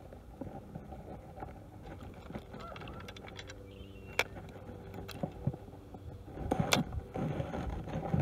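Abu Garcia Silver Max reel being cranked as a hooked fish is reeled in, with scattered clicks, then louder splashing and knocks about six and a half seconds in as the fish is brought up out of the water.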